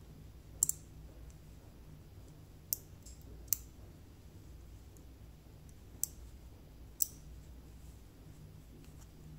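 Small parts of a miniature alloy toy pistol clicking as they are handled and fitted together: about six sharp, light clicks at uneven intervals, two in quick succession near the start, over a faint low hum.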